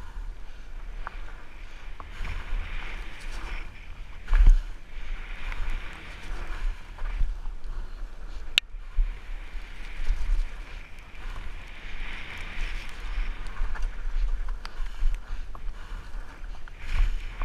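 Riding noise of a fat bike descending a wet dirt trail: wind buffeting the camera microphone and the tyres rolling over wet ground, with a loud knock about four seconds in and a sharp click about halfway.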